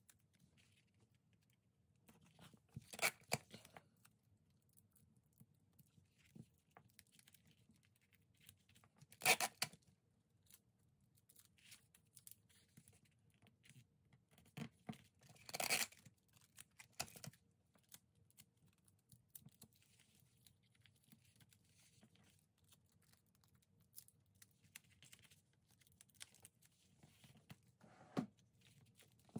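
Tesafilm clear adhesive tape pulled off and torn in short strips: three louder rips about six seconds apart, with faint rustling of plastic pieces and paper between them.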